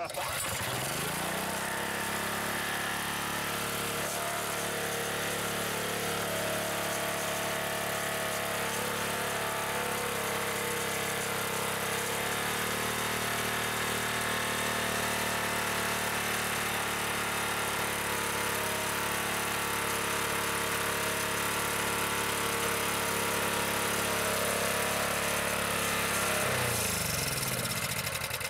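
A 212 cc single-cylinder OHV small engine fitted with a GEET fuel processor catches and comes up to speed, then runs steadily. Near the end its speed drops and it winds down to a stop.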